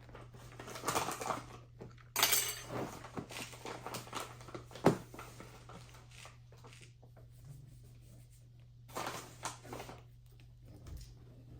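Slime-making handling noises: rustling, scraping and stirring in plastic buckets as baking soda is added to a glue and shaving-cream mixture, with one sharp tap about five seconds in.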